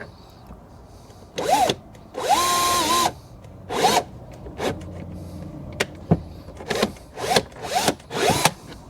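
Power drill boring a hole in the van's dashboard panel, run in a series of short trigger bursts that each spin up and wind down, with one longer steady run about two and a half seconds in.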